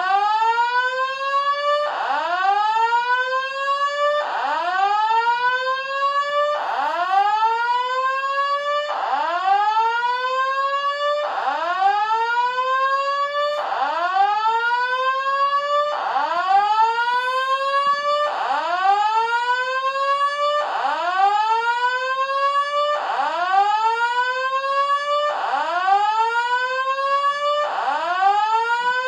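Electronic alarm sounding a repeated whoop: a tone that sweeps quickly upward, levels off and cuts out, starting over about every two and a quarter seconds.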